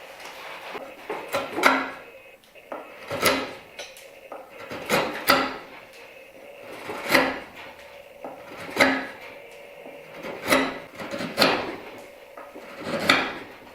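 Hand-forged knife blade cutting into a piece of oak in repeated strokes, about one every one and a half to two seconds, each a short scrape ending in a sharp click: a test of the freshly sharpened edge.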